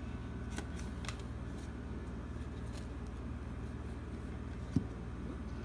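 Basketball trading cards being handled and slid against one another, giving a few faint light clicks over a steady low hum, with one short low thump near the end.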